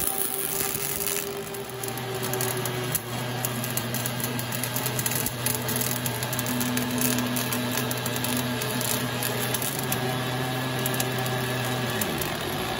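Automatic CNC welder's arc crackling and spitting spatter as it lays a circumferential seam on a hydraulic cylinder rod turning in the chuck. A steady low hum from the machine starts about two seconds in and stops near the end.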